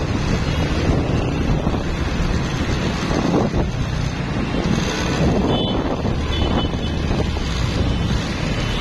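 Wind buffeting the microphone over steady road traffic noise, recorded from a vehicle moving through city traffic.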